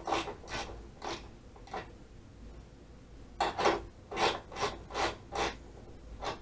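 Hand ratchet wrench being swung back and forth to undo the windshield mounting bolts, a short rasping click on each stroke. About four strokes, a pause, then a quicker run of about six more.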